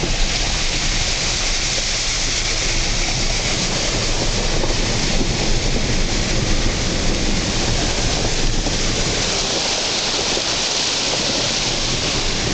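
Steady hiss of heavy rain and wet tyres as a vehicle drives along a flooded road, with a low rumble underneath.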